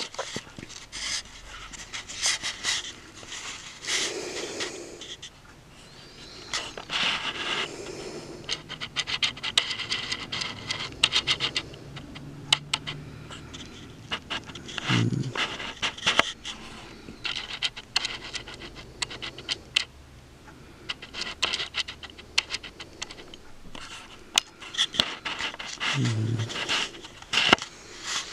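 Breathing close to the microphone, drawn-out breaths every few seconds, with soft rustling and small clicks of handling. Twice a brief low hum is heard.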